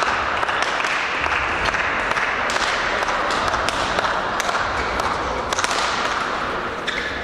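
Sports hall din: many sharp racket hits on shuttlecocks from several courts at once, over a steady wash of distant voices and movement.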